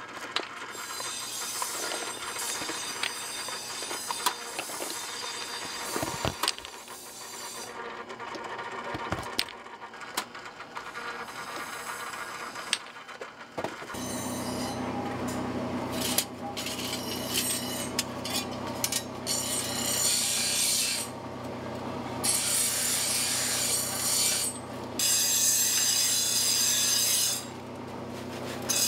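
Wood rubbing and scraping with scattered sharp knocks as a wooden homi handle is worked at a small bench machine. About halfway through this gives way to a steady low mechanical hum with spells of loud hissing.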